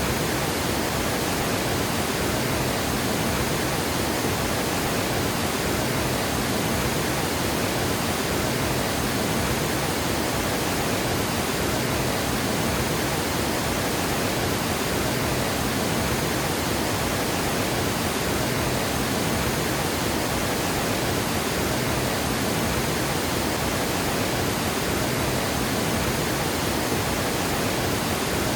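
Water spilling over a dam, a steady, dense rush with no breaks or changes.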